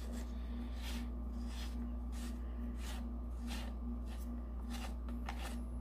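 Faint light clicks and rubbing of plastic parts as the cover assembly of a Sherwood Maximus scuba regulator second stage is worked loose by hand with a small screwdriver, over a steady low hum.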